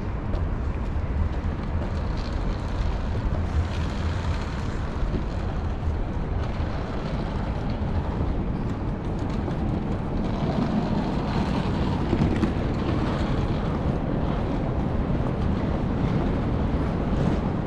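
Outdoor city ambience: wind rumbling on the microphone over a steady hum of road traffic.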